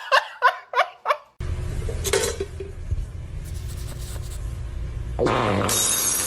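A person laughing in about five short bursts, then a cut to a steady low background hum.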